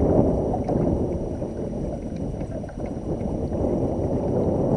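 Wind buffeting the microphone in a steady low rumble, with choppy water lapping against the kayak.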